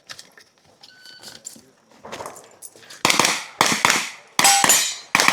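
Pistol shots fired in quick pairs, about six in all starting about three seconds in, each with a sharp crack and a metallic ringing tail.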